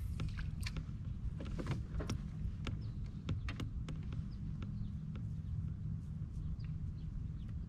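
Wind rumbling steadily on the microphone, with many scattered light clicks and ticks and a few faint high chirps.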